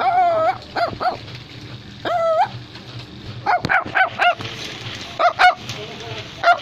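High-pitched dog-like yapping: two drawn-out whining yelps, one at the start and one about two seconds in, with short quick yips between and in the second half.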